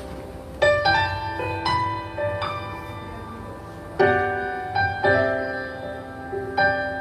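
Slow piano introduction to a worship song: chords struck and left to ring, with a few single notes between them and a fresh chord about four seconds in.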